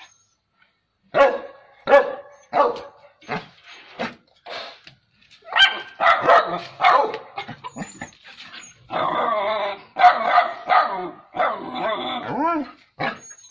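Dogs barking while attacking a Bornean wild cat: single barks about two-thirds of a second apart, then from about six seconds in a denser, nearly unbroken run of barks and yelps.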